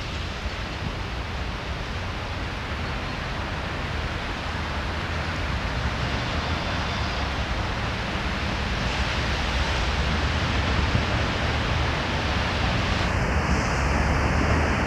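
ChS7 electric locomotive hauling a passenger train as it approaches: a steady, low rumbling noise that grows gradually louder as the train comes nearer.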